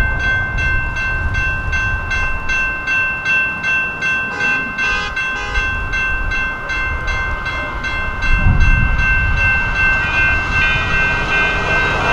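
Railroad grade-crossing warning bell ringing steadily at about three strokes a second, over a low rumble.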